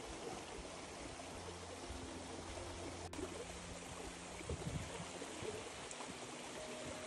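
Steady rushing noise, like flowing water, with one sharp click about three seconds in.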